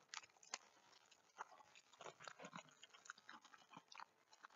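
Faint crinkling and crackling of a plastic shipping mailer being pulled and torn at along its perforated line.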